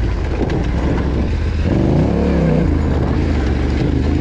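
Yamaha Ténéré 700 motorcycle's parallel-twin engine running under throttle off-road, the note rising briefly about two seconds in and dropping back.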